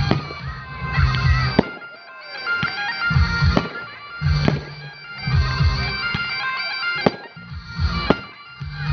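Bagpipe music with fireworks going off: steady piped notes over repeated deep firework booms, with several sharp bangs.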